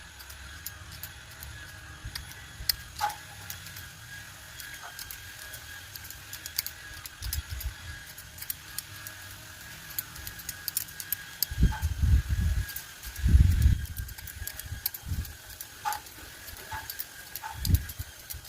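Bonsai pruning shears snipping: scattered short metallic clicks at irregular intervals. A few heavier low bumps come about two-thirds of the way in, and a faint steady high tone sits underneath.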